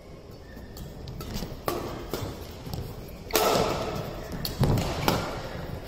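Badminton rally: sharp racket strikes on the shuttlecock at irregular intervals, starting a little over a second in, with footfalls and shoe squeaks on the court mat, louder and quicker from about three seconds in.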